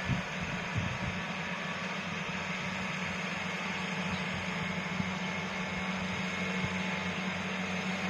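Rice harvesting machine's engine running steadily: a constant low hum under a wide hiss, with a few soft knocks in the first second.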